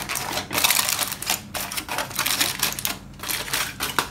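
Aluminium foil crinkling and crackling in irregular bursts as hands press and crimp it around the rim of a pot lid to seal it.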